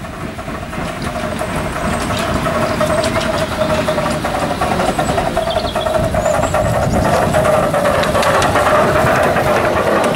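Miniature steam locomotive hauling a passenger train, approaching and passing close by, growing steadily louder. A steady mid-pitched tone runs through a dense, rapid clatter of wheels and exhaust.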